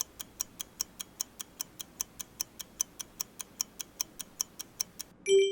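Ticking clock or countdown-timer sound effect, about five quick ticks a second, ending in a short bell-like ding near the end.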